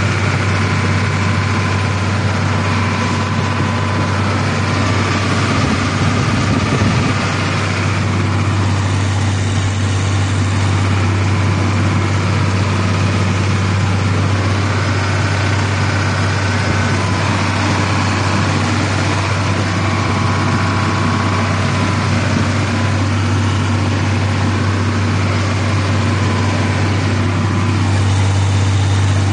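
Combine's engine running steadily at an even speed, a loud, unchanging low hum.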